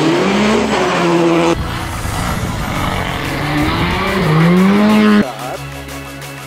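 Rally car engine revving hard, its pitch climbing as the car accelerates, in passes broken off abruptly about a second and a half in and again near five seconds.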